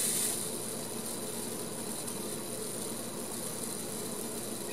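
Small electric motor in a model locomotive chassis running steadily through its worm gear, turning the wheels, side rods and valve gear: an even whirring hum. It drops a little in level just after the start.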